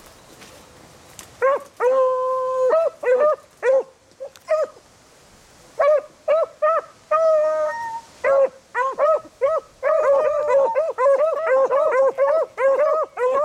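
Beagles giving tongue on a rabbit's trail. A couple of long drawn bawls come between shorter barks in the first half, then a fast, steady chop of barks, several a second, from about eight seconds in.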